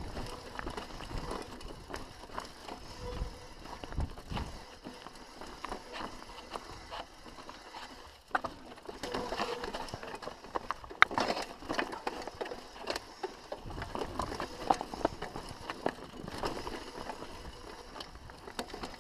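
Mountain bike clattering down rocky singletrack: tyres rolling over stones and dirt, with many small knocks and rattles from the bike. A single sharp knock a little past halfway is the loudest moment.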